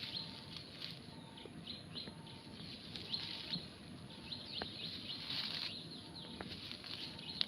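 Small birds chirping over and over in short, high, downward-sliding notes, with a couple of faint clicks and light rustling underneath.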